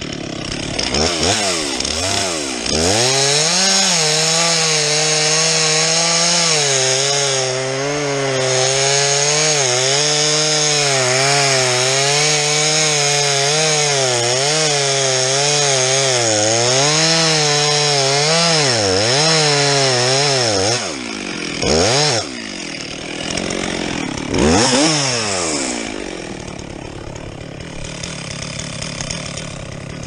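Stihl MS 362 two-stroke chainsaw revving up and cutting through a standing tree's trunk at full throttle, its pitch wavering as the chain bites, for about twenty seconds. It then drops back, is blipped twice, and idles.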